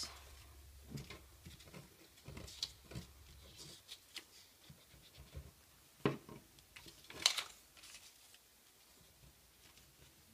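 Construction paper being handled, slid and pressed down onto a paper sheet: faint scattered rustles and taps, with a louder rustle about seven seconds in.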